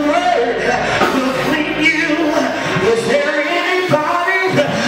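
A man singing a slow gospel song into a microphone over the church sound system, with music behind him; his voice slides and bends through long held notes.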